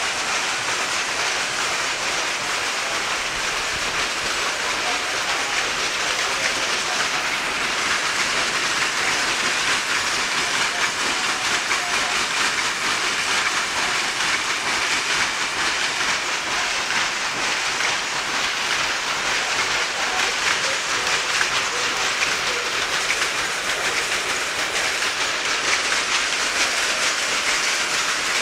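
Towel-weaving loom running at full speed: a loud, steady, dense mechanical clatter with a fast rattling beat that never pauses.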